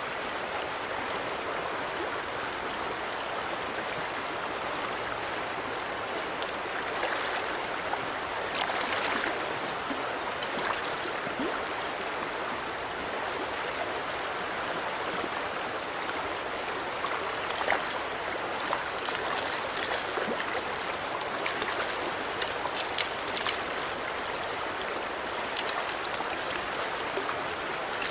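Shallow river riffle running steadily over rocks. In the second half, sharp splashes come and go as a hooked trout thrashes at the surface while being brought to the net.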